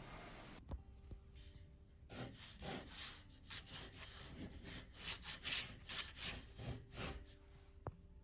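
A series of rubbing strokes across paper, about two a second for several seconds, with a single sharp click near the end.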